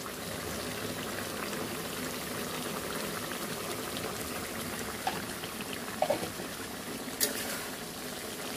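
Thick beef liver curry bubbling in a karahi, a steady soft popping and sizzling as the last of the cooking water boils off and the sauce reduces.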